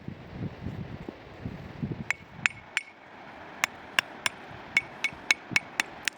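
Hammer strikes: about a dozen sharp, ringing clinks at an uneven pace through the second half, after a few dull low knocks.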